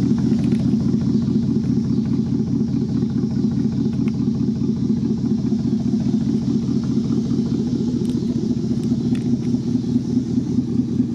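GMC Sierra pickup truck's engine running at a steady idle.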